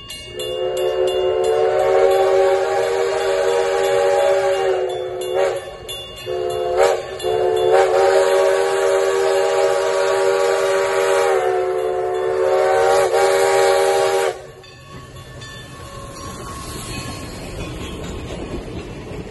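Steam locomotive's chime whistle blowing the grade-crossing signal: a long blast, a few short toots, then a second long blast, each a chord of several steady tones. The whistle is on a 1920 Alco 2-6-0 Mogul. When it cuts off, the locomotive and its passenger coaches roll past with a rumble of wheels on rail that grows louder near the end.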